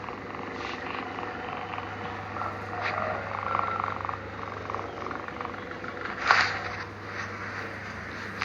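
Sleeping cat snoring, a fast, even purring rattle, over a steady low hum. A short, sharp noise stands out about six seconds in.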